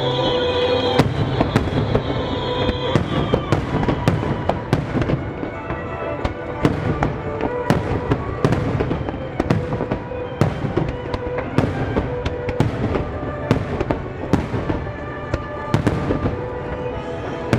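Music starmine fireworks: a rapid barrage of sharp aerial shell bursts, often several a second, going off over music with steady held tones.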